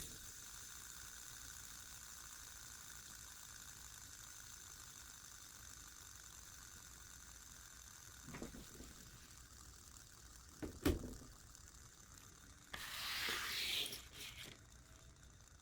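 A fidget spinner whirring steadily. A few handling knocks follow, then a short rustle near the end.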